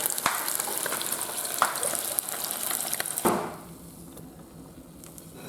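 Battered whole spangled perch frying in hot oil: a steady sizzle with small crackles that stops suddenly about three seconds in, leaving only a faint background.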